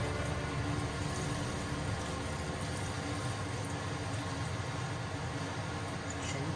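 Liquid poured in a steady stream from a large plastic bottle into a pot of soup: a continuous splashing pour, with a few faint clicks near the end as the bottle is tipped back.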